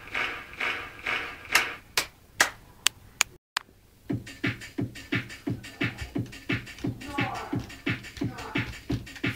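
A rhythmic, music-like beat: a pulse repeating about twice a second, a few sharp clicks, a brief cut to silence, then a faster steady beat of about three pulses a second.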